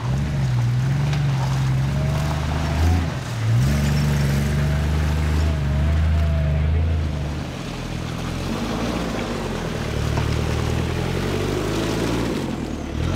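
Off-road 4x4 truck engine running under load at low revs as it crawls through mud, its pitch dropping briefly about three and a half seconds in and then picking up again.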